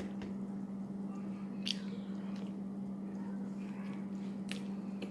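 A person chewing food, with a couple of short clicks about a second and a half and four and a half seconds in, over a steady low hum.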